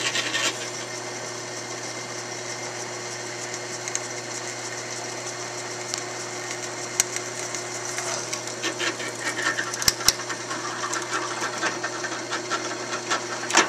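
Drill press running steadily, its bit drilling a 3/16-inch pin hole through a pickaroon's steel head and wooden handle. A few sharp clicks come about ten seconds in.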